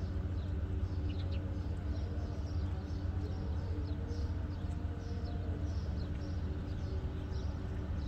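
Small birds chirping, short high calls repeating about two or three times a second, over a steady low rumble.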